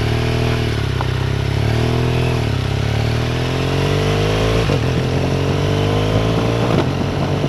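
Motorcycle engine heard from an onboard camera while riding. The engine note dips briefly in the first few seconds, then rises steadily for about four seconds as the bike accelerates.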